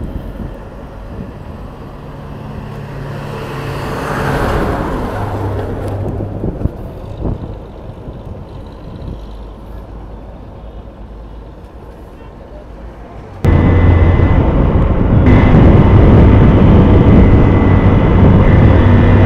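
Riding a Hero Hunk 150 cc single-cylinder motorcycle at night: engine and road noise, with another vehicle swelling past about four seconds in. About thirteen seconds in, the sound jumps suddenly to a much louder, steady rush with a low hum.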